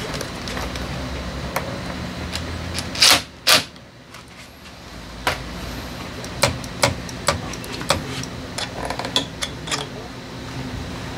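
Sharp metallic clicks and clacks from a scooter's handlebar brake lever and a clip-on parking-brake latch being handled and worked. Two loud clacks come about three seconds in, then a run of lighter clicks, over a steady low hum.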